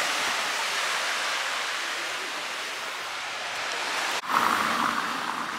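Surf breaking on a sandy beach: a steady rushing wash of waves, broken by a sudden short gap about four seconds in, after which it comes back a little louder.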